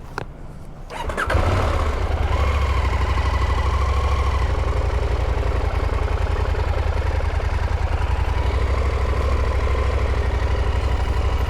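KTM motorcycle engine started about a second in, catching at once and then idling steadily.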